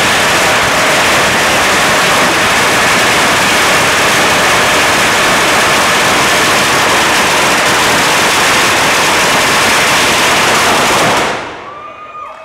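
A long string of Chinese firecrackers burning off in a loud, dense, unbroken crackle that stops suddenly about eleven seconds in, as the string burns out.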